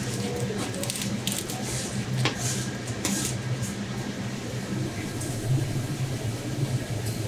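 Long kitchen knife cutting through raw bluefin tuna, with wet squishing and scattered short clicks as the blade and hands work the flesh. A steady low hum runs underneath.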